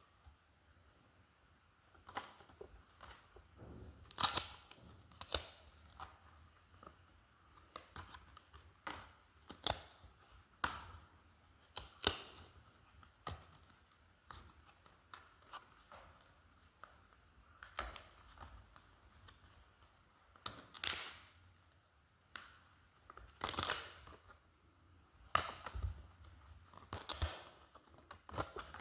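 Trading cards and their packaging being handled: irregular rustles, slides and light taps, some sharper and louder than others.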